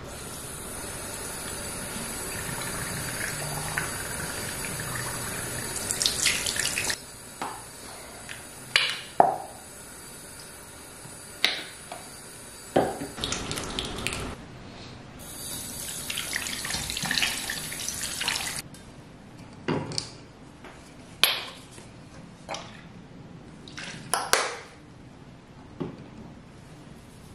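Bathroom tap running water into a ceramic basin, shut off sharply about seven seconds in, with splashing of hands in the water. The tap runs again for a few seconds midway and stops abruptly, then come several sharp knocks and taps of bottles being handled on the counter.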